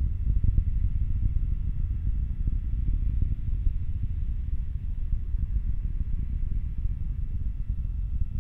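Falcon 9 first stage's nine Merlin 1D engines burning, heard on board the rocket as a steady, fluttering low rumble, with a few faint steady whines above it.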